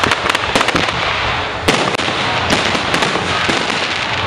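Fireworks display: dense, overlapping bangs and crackling, with one louder bang about a second and a half in.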